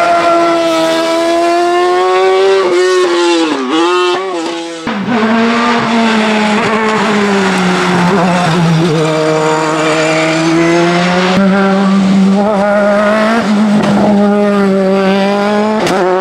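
Hill-climb racing car engines at high revs as the cars pass close by. In the first few seconds the revs drop and jump sharply several times, as on downshifts into a bend. About five seconds in, the sound switches to another car holding a steady high engine note, with brief breaks for gear changes.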